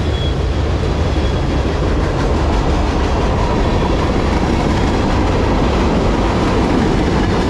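Freight train cars rolling past at close range: a steady rumble of steel wheels on rail from loaded bulkhead flatcars and open gondolas, with a faint thin squeal now and then.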